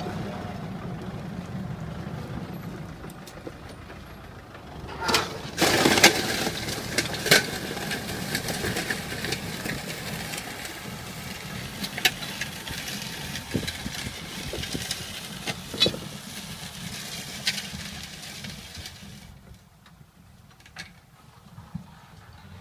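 Farm tractor's diesel engine running as it pulls a disc plough through dry soil, with several sharp clicks and knocks, the loudest about six seconds in. The sound drops away near the end as the tractor moves off.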